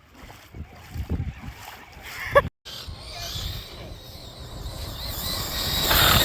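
Electric motor of an Arrma Gorgon RC monster truck whining as it drives through flood water with spraying, splashing water, getting louder toward the end; a short rising whine just before a brief dropout about two and a half seconds in.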